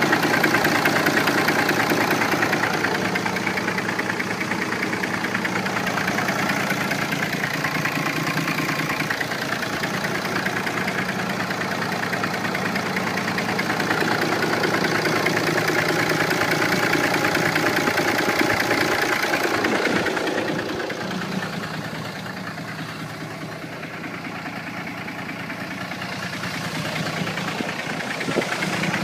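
The 6.7-litre Cummins turbo-diesel of a 2008 Dodge Ram 2500 idling with a rapid knocking, whose cause the owner is trying to trace. It grows quieter for several seconds about two-thirds of the way through, then comes back up.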